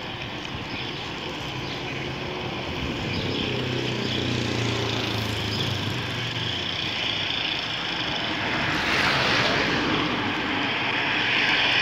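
Wind rushing on the microphone of a handlebar-mounted camera while a bicycle rolls along a paved street. A passing car's engine drones low for a few seconds, and a louder rush of its tyres swells about nine seconds in as it goes by.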